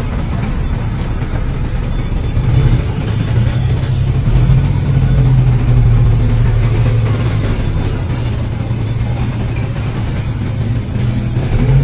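Engine of a small wheel loader working steadily, its low hum swelling as it lifts the bucket after tipping sand into a light truck's bed. Near the end the engine note rises.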